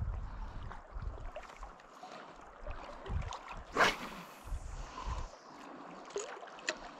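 Wind buffeting the microphone in uneven gusts, with one sharp knock about four seconds in and a few faint clicks.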